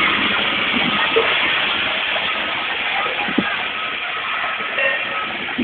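Ride-on floor scrubber running, a steady motor-and-suction hiss with a faint high whine, slowly getting quieter as the machine drives away over the paving.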